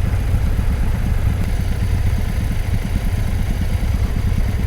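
Suzuki V-Strom 800DE's parallel-twin engine idling at a standstill, a steady low rapid pulsing.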